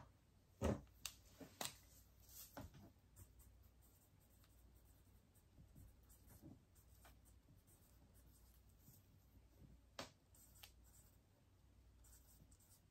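Faint sounds of a pen writing labels for bags of diamond-painting beads, with a few scattered light taps and clicks, the clearest about half a second in and again about ten seconds in.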